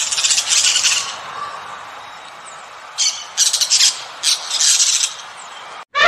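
Amazon parrot squawking: a burst of harsh calls for about the first second, then two more bouts of rasping squawks in the second half.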